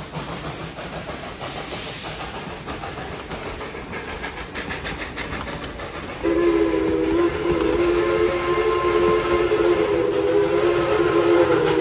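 Passenger cars of a narrow-gauge steam train rolling past with light wheel clatter on the rails. About halfway through, the locomotive's steam whistle sounds one long chord of several tones at once, held for about five seconds.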